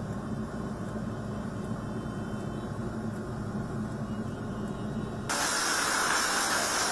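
Muffled, steady rumble of vehicle engines in a flooded underpass. About five seconds in it cuts abruptly to a louder, steady hiss of rushing water and rain.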